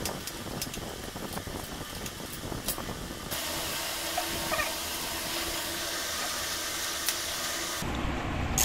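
Steady hiss with a few sharp metallic clicks from a socket wrench working the engine-guard bolts. The background changes abruptly about three seconds in and again near the end.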